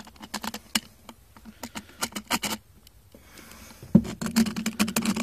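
Light metallic clicks and rattles of carriage bolts and saw chain being handled as the bolts are pushed through the holes in an electric chainsaw's bar. A knock about four seconds in, then denser rattling.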